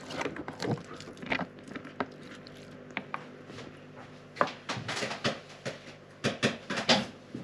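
Thin plastic meat packaging crinkling and crackling as ground turkey is squeezed out of it, with soft squelches of the mince. Sparse crackles at first, then a dense run of crackling in the second half.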